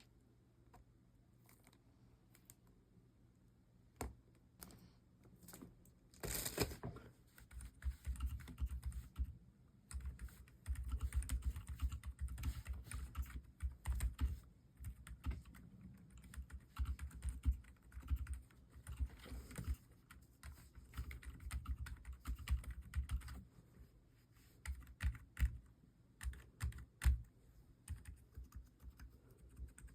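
Typing on a mechanical keyboard fitted with Akko Fairy Silent switches: dampened keystrokes in quick runs with short pauses. A few isolated clicks come first, then a brief louder noise about six seconds in before steady typing begins.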